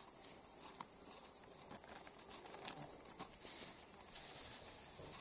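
Faint rustling and crinkling of a plastic bag being handled, with scattered light clicks.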